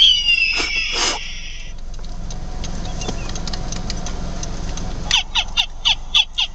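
Bird calls. A burst of gliding whistled notes opens, then about five seconds in comes a quick run of some seven short calls, each sliding sharply down in pitch, over a steady low background rumble.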